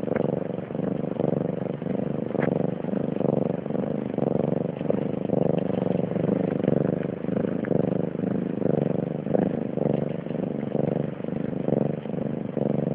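Colourpoint mother cat purring close to the microphone: a steady low rumble that swells and eases with each breath, about once a second.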